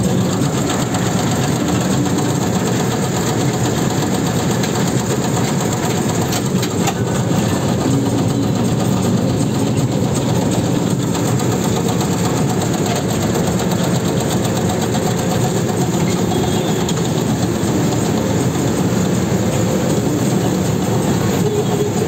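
Rice combine harvester running steadily as it cuts through the crop, heard from inside the cab: a constant, dense engine and machinery noise with no breaks.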